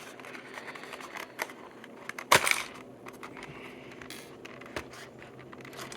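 Scattered small clicks and handling noises as the body clips are worked off a 1/24 scale RC crawler. The sharpest click comes about two and a half seconds in.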